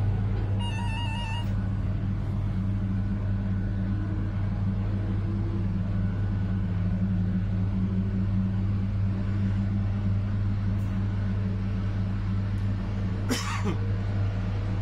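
Steady electric hum and running noise of a V63 'Gigant' electric locomotive under way with an InterCity train. A short run of beeps comes about a second in, and a brief sharp noise near the end.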